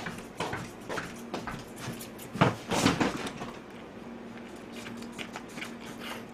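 Scattered knocks and thumps of a person moving about and handling things, with the loudest pair of knocks a little over two seconds in, over a faint steady hum.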